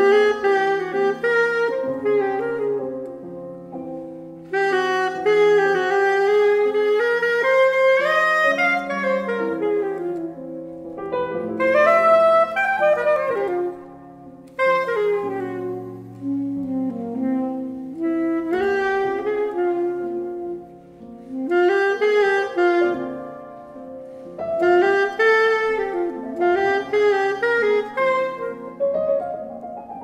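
Alto saxophone playing a jazz melody in phrases with short pauses, over grand piano accompaniment. Near the end the saxophone stops and the piano carries on with a rising run.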